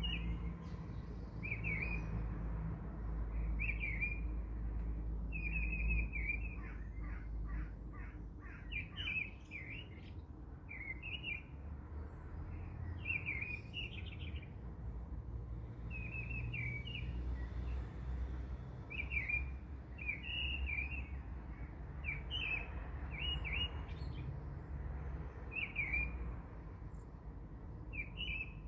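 Birds chirping: short chirps repeated every second or two, over a low steady hum.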